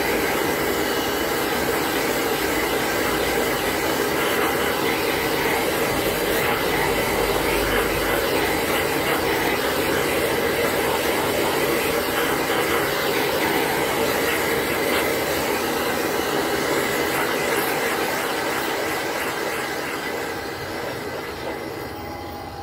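Gas blowtorch burning with a steady hiss as its flame heats an aluminium motorcycle crankcase, the heat that expands the bore so a needle bearing can be fitted. The hiss dies down over the last few seconds.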